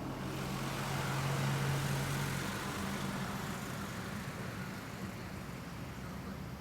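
A motor vehicle going by: a steady engine hum with a rushing hiss that swells in the first few seconds and then fades away.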